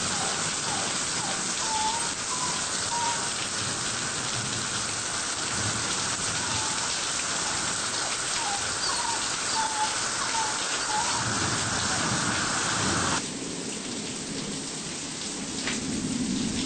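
Steady hiss of hurricane rain and wind, with faint short chirps over it for the first half. The hiss drops suddenly about thirteen seconds in.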